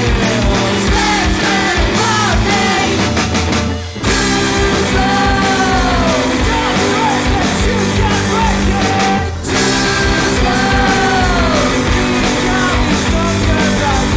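Rock song with singing over guitars and drums, playing steadily, with two brief breaks in the music.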